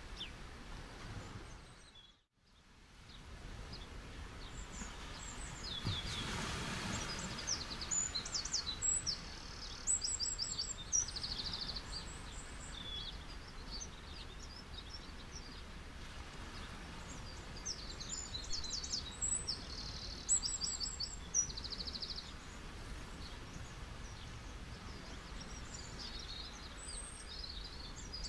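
Steady wash of sea waves on a beach, swelling louder about six seconds in, with small birds chirping in quick high trills over it. The sound dips almost to silence for a moment about two seconds in, then fades back up.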